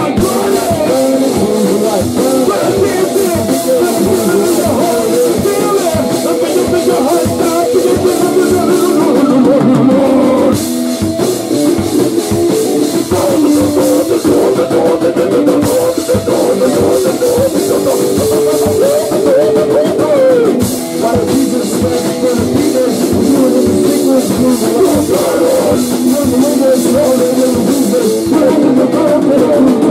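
Loud rock music with a drum kit and guitar playing continuously.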